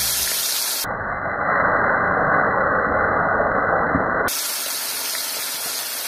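Hot oil sizzling and bubbling steadily around a whole fish shallow-frying in a frying pan. From about a second in until about four seconds in, the sound turns duller, with its high end cut off.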